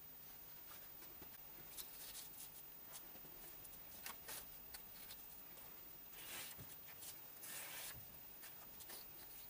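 Faint, short scratchy strokes of a marker drawn along a straightedge across rough-sawn white oak boards while parts are marked out, several strokes a second or two apart, the longer ones near the end.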